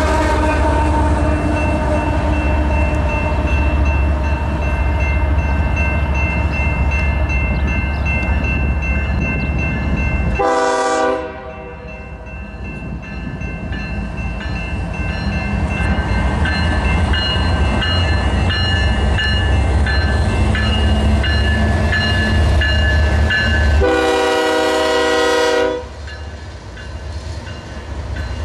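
Diesel locomotive rumble from passing and approaching freight trains. The approaching westbound BNSF intermodal train's lead locomotive blows its horn twice, a short blast about ten seconds in and a longer one of about two seconds near the end. A grade-crossing bell rings steadily in the second half.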